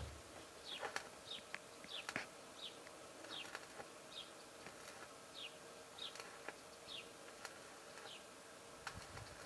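Faint outdoor sound of a small bird chirping over and over: short, high, falling chirps, about one or two a second. A faint steady hum lies under it.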